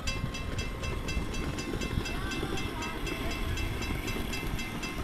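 Grade-crossing signal bell dinging over and over in a fast even rhythm, under it the low rumble of a miniature ride-on passenger train rolling past on its rails.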